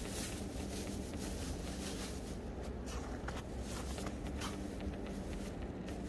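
Light crinkling and rustling of a thin plastic bag being handled, over a steady low rumble with a faint hum.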